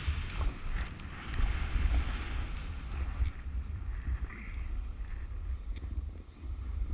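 Wind rumbling on an action camera's microphone during a downhill ride on snow, with the hiss of snow sliding under the rider. The hiss is stronger in the first few seconds, and a few faint clicks come later.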